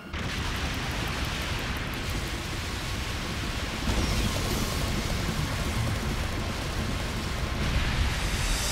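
Cartoon sound effect of a spaceship launching out of cracking, breaking rock: a continuous heavy rumble of crumbling stone. It gets louder about four seconds in and again near the end.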